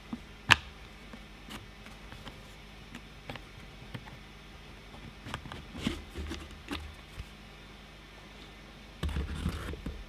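Laser-cut MDF puzzle box being worked by hand: scattered light clicks and knocks as its wooden pins and sliding latches are pushed into place, the sharpest about half a second in. A short low rustle of handling near the end as the lid lifts off.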